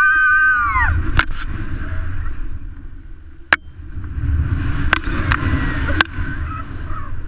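A woman's long, high squeal in the first second, rising and then falling in pitch. Then wind rushes over the GoPro's microphone as she swings on the pendulum rope, swelling and fading, with a few sharp clicks.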